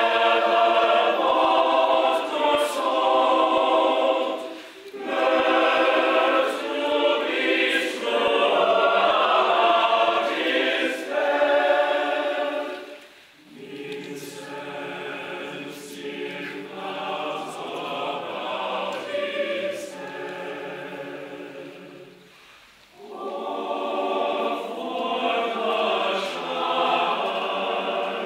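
Church choir singing a Christmas carol in several phrases with short breaks between them. The middle passage is quieter and carries lower voices, then the fuller, higher-voiced sound returns near the end.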